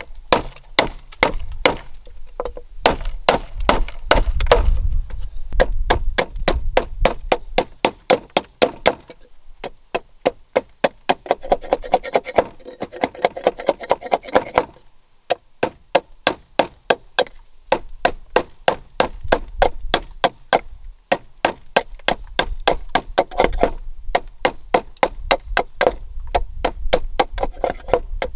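Large knife shaving a strip of bamboo held against a wooden log, in quick repeated strokes: a steady run of sharp wooden clicks and scrapes, a few a second.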